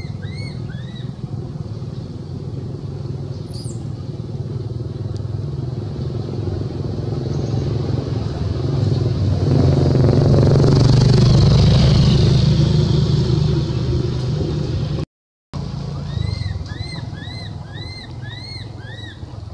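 A motor vehicle engine running nearby, growing louder to a peak about ten seconds in, then easing off, with a brief dropout near the end. Short, high, arched squeaky calls repeat at the start and again in the last few seconds.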